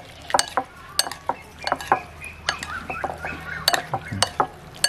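A metal spoon clinking and scraping against a ceramic bowl as a wet cockle salad is tossed, in quick irregular clinks.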